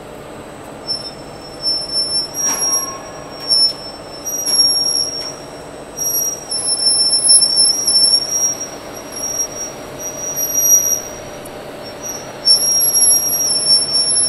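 Gearbox-driven roll forming machine running, steel sheet passing through its forming rollers with a steady mechanical hum. Over it, a high-pitched metallic squeal keeps coming and going, with a single sharp click about two and a half seconds in.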